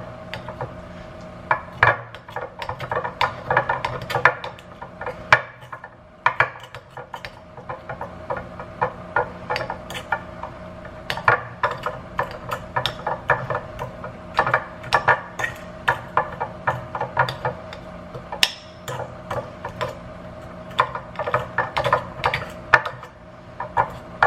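A utensil mashing seasoned black beans in a bowl, with many irregular clinks, taps and scrapes against the bowl.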